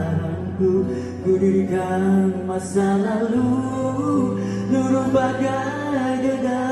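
A man singing a pop-rock song live into a microphone, backed by a band with guitar and bass.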